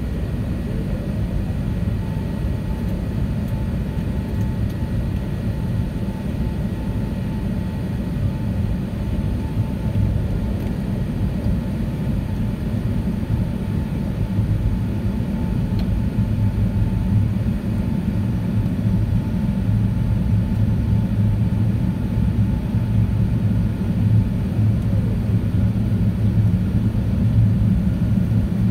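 Airbus A380 cabin noise during the climb: a steady low rumble of engines and rushing air, with a faint steady whine through much of it. It grows slightly louder toward the end.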